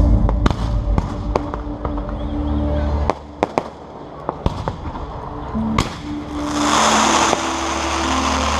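Fireworks display: sharp bangs of bursting shells at irregular intervals over music playing from loudspeakers. About two-thirds of the way in, a dense, loud hissing noise swells up.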